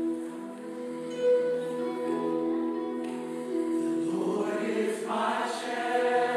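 Samoan church choir singing long held chords that swell fuller and louder about four seconds in.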